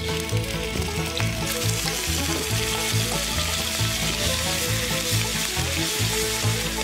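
Pieces of raw meat sizzling in hot oil and garlic in a wok as they are tipped in and stirred with chopsticks; the sizzle swells loud about a second and a half in and holds. Background music with a steady low beat underneath.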